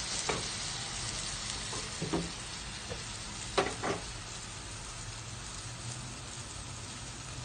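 Small squid frying with sautéed tomato, garlic, onion and ginger in a stainless steel pot, with a steady sizzle. A spoon stirs and knocks against the pot a few times in the first four seconds, then only the sizzle is left.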